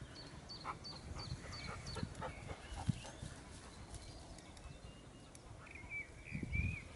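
Dog whining softly: a quick run of short high whimpers in the first couple of seconds, then a longer wavering whine near the end.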